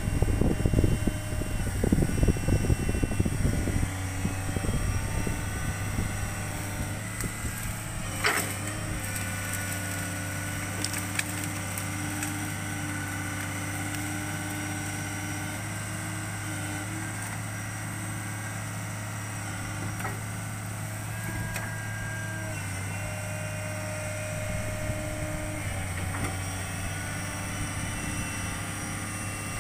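Hitachi excavator's diesel engine running steadily, with higher tones that come and go as the machine works. There is irregular clattering in the first few seconds and a single sharp knock about 8 seconds in.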